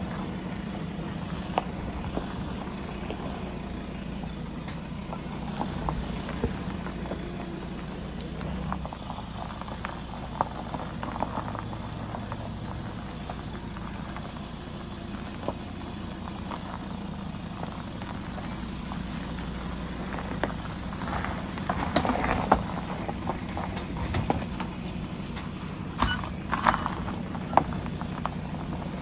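Ford Ranger engine running steadily at low revs, heard from inside the cab while the truck drives over a rough four-wheel-drive track. Scattered knocks and rattles from the body and suspension come thickest about two-thirds of the way in and again near the end.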